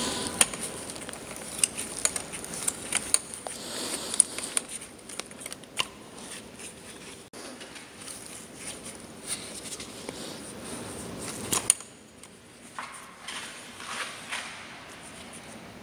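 Scattered light metallic clicks and taps with glove rustle as long-nose pliers and hands work the screws loose on a Mercedes M272 V6's EGR valve and pull the valve free. The clicks are busiest through most of the stretch and thin out over the last few seconds.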